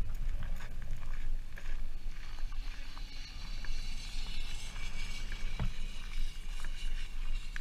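Wind rumbling on the microphone with footsteps crunching on gravel. A higher hiss swells and fades in the middle.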